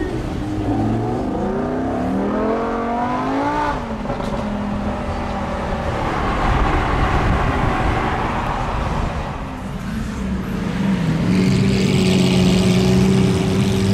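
Supercar engine accelerating hard. Its note rises for about four seconds, then drops sharply at a gear change, and it keeps running with road noise until it settles into a steadier, lower note near the end.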